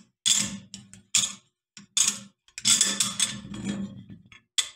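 Metal clicking and rattling as a Rock Island M1903 Springfield action, bolt in place, is handled and turned by hand on the barrel's threaded tenon, in about eight short, sharp clatters.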